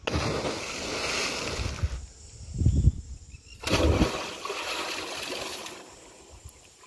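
A person jumping into a deep, swift canal: a sudden heavy splash about four seconds in, then churning water that fades out. There is a rush of noise and a low thump before it.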